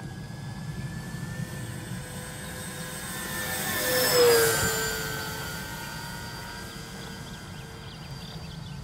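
Twin electric motors and propellers of a Dynam B-26 Marauder RC warbird whining through a fast low pass. The sound swells to a peak about four seconds in, drops in pitch as the plane goes by, then fades as it climbs away.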